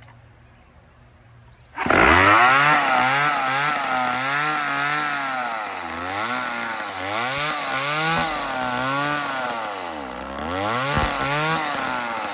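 Early-to-mid-1970s Homelite two-stroke chainsaw engine running, cutting in suddenly about two seconds in, its pitch rising and falling again and again as it revs up and down.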